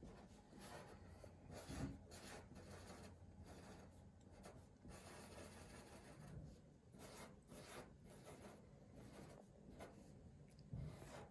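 Faint scratching of a Sharpie permanent marker tip on paper, in many short quick strokes as small details are drawn.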